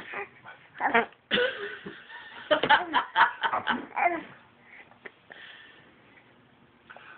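A person laughing in a quick run of short bursts, starting about two and a half seconds in.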